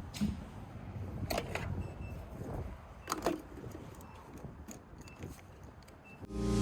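Handling noise: a few scattered clicks and clinks, like keys or small items being moved about, over a low rumble. Music comes in near the end.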